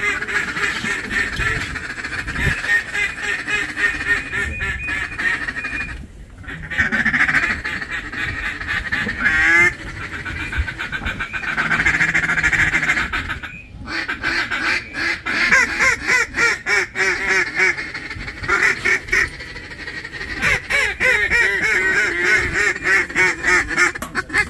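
Waterfowl calling: a long run of quacks and honks. It comes in bursts of rapid repeated notes, with short breaks about six seconds in and just before fourteen seconds.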